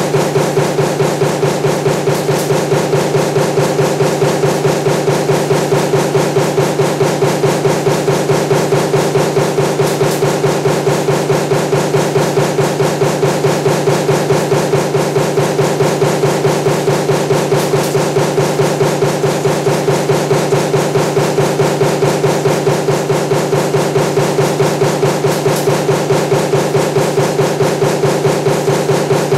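Punch press running a progressive die for table fan motor laminations, stamping in rapid, even strokes with a steady hum under them.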